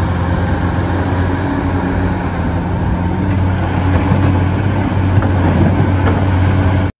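Large Caterpillar hydraulic excavator's diesel engine running steadily under load with a deep hum, while rock and dirt are dumped from its bucket, giving a few faint knocks near the end. The sound cuts off abruptly.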